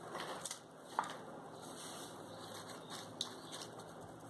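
Faint soft taps and rustling as a silicone spatula presses and shapes cookie dough on parchment paper in a glass baking dish, with a few light clicks, the sharpest about a second in.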